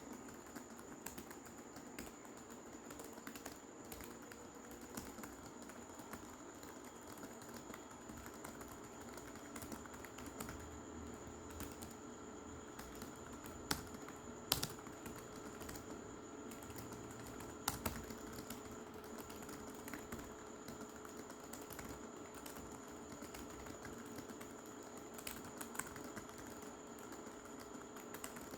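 Fast, continuous typing on a computer keyboard: a steady stream of keystroke clicks, with a few louder key strikes around halfway through.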